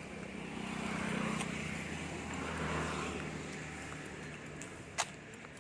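A motor vehicle passing on the road, its engine hum swelling and then fading away, with a single sharp click about five seconds in.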